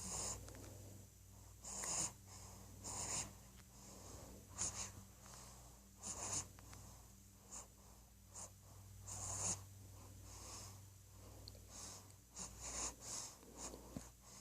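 One-month-old baby snoring in sleep: short, noisy breaths about every one to one and a half seconds, at an uneven pace, with a few quicker ones close together near the end.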